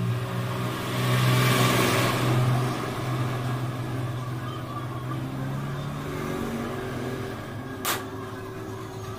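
A motor vehicle engine running close by, swelling to its loudest about two seconds in and then slowly fading. A single sharp click comes near the end.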